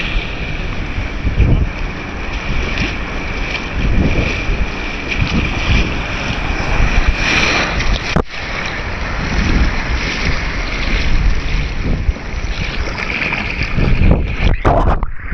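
Sea surf surging and breaking around a swimmer, with wind and splashing water buffeting the microphone.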